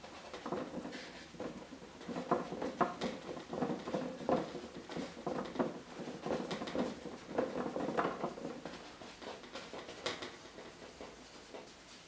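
Paintbrush dabbing and scrubbing paint onto canvas: a run of short, irregular soft taps and scrapes that thin out near the end.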